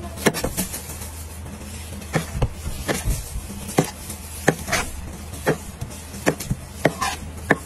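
A large kitchen knife slicing the rind off a whole watermelon: a series of short, crisp crunches, about a dozen at uneven intervals, over a steady low hum.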